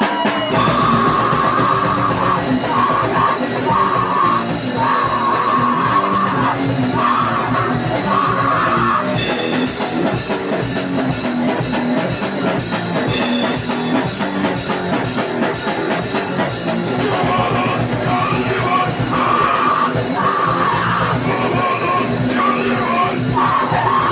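Extreme punk/grindcore band playing live: loud distorted guitar and drums with yelled vocals.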